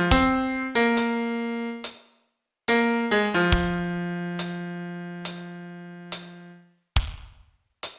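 A piano sound plays a slow single-note melody, each note struck and left to ring out, with one long low note held through the middle. A short click marks the beat just under once a second.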